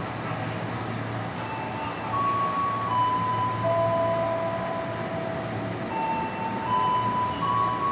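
Electric commuter train standing at the platform: a steady low hum with several clear whining tones over it, each held about a second before stepping to another pitch.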